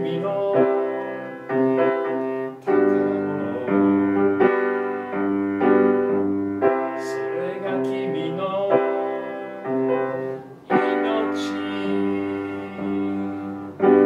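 Upright piano playing a slow piece of sustained chords, a new chord struck about once a second.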